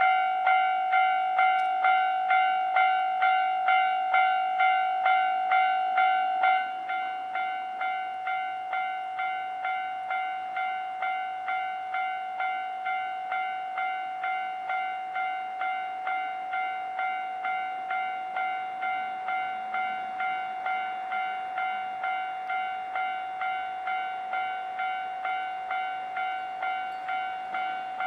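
Japanese railway level-crossing warning bell ringing its steady electronic ding about twice a second. About six and a half seconds in it drops noticeably in volume and keeps ringing.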